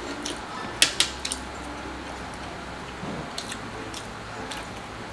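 Metal spoons clinking and scraping against glass bowls of rice, with a sharp pair of clinks about a second in and a few lighter clicks later.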